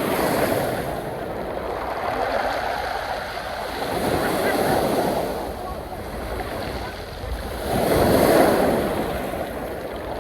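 Sea waves breaking on the pebble shore at Nice, coming in swells that rise and fall every few seconds, the biggest about eight seconds in.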